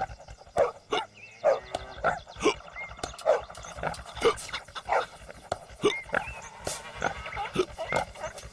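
A dog barking in a series of short, irregular barks, about one or two a second.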